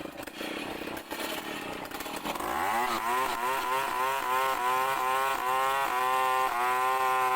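A two-stroke chainsaw revs up about two and a half seconds in, then runs steadily with a slightly wavering pitch.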